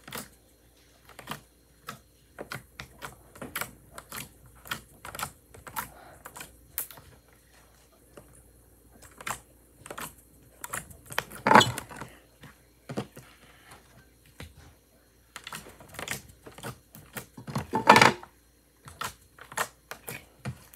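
Clear glitter slime being kneaded and squished by hand, giving off many irregular sticky clicks and small pops, with two louder squelches, one about halfway through and one near the end.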